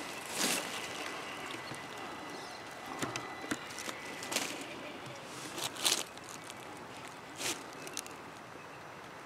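Dry leaf litter crunching and rustling in a few short bursts, the strongest a double crunch a little past the middle.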